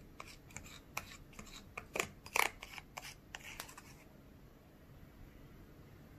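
Small plastic spoon stirring and scraping sauce in a thin plastic tray of a DIY candy kit: a run of small irregular clicks and scrapes that stop about four seconds in.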